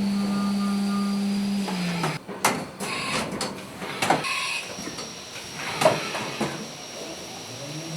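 CNC milling machine: a steady whine falls in pitch and stops about two seconds in, a run of clunks and clicks follows, and the whine rises back up near the end.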